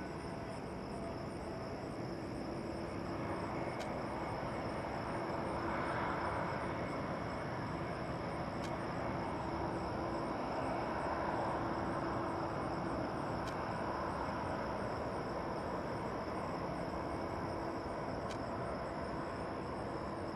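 Airbus A340's four jet engines at taxi power, a steady rushing hum with a faint low drone, swelling around six seconds in and again around ten to twelve seconds in.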